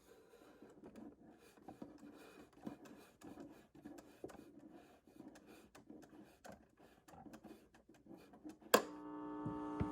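Vintage AM radio between broadcasts: faint crackling and scratching with scattered small clicks. About nine seconds in comes a sharp click, then a steady buzzing tone that swells in loudness.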